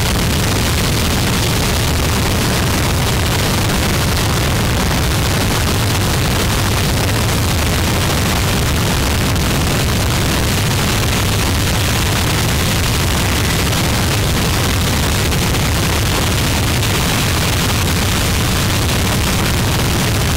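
Harsh noise music: a loud, unbroken wall of static-like noise with a heavy low rumble underneath, holding one constant level with no beat or pauses.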